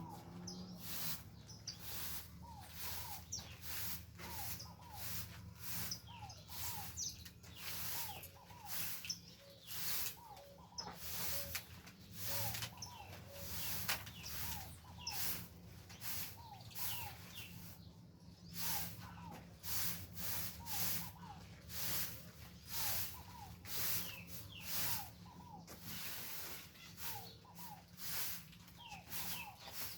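Wild birds calling and singing, with short falling chirps repeated again and again, over a steady high-pitched pulsing and a low hum.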